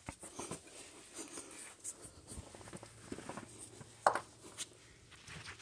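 Faint rubbing and handling noises with scattered light knocks, and one sharper click about four seconds in.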